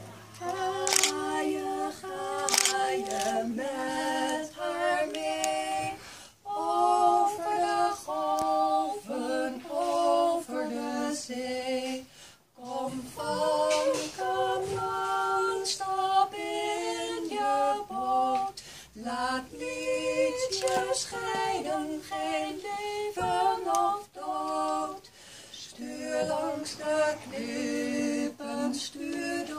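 Two women singing a song together unaccompanied, in held notes that step from one pitch to the next, with short breath pauses between phrases.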